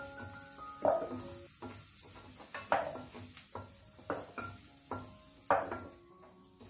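Wooden spatula stirring and scraping carrot pieces in hot mustard oil in a new cast iron pot, a stroke about every second, with the oil sizzling. The pot is being seasoned for first use and the oil is hot enough to smoke.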